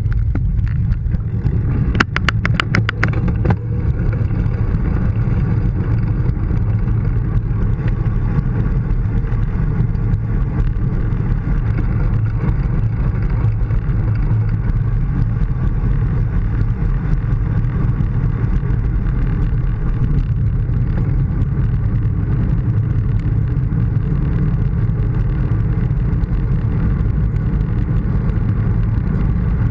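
Steady wind rush and road noise on a bike-mounted GoPro as a bicycle rolls along asphalt. A quick run of clicks comes about two seconds in.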